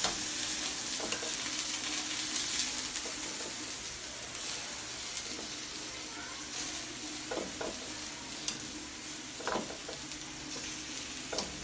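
Boiled potato pieces sizzling in a stainless steel frying pan over low heat, browning. A few light knocks come through the sizzle as more pieces are set into the pan by hand.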